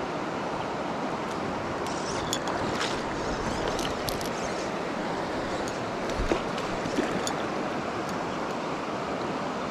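A mountain stream rushing steadily over rocks, with a few faint light ticks about two to four seconds in.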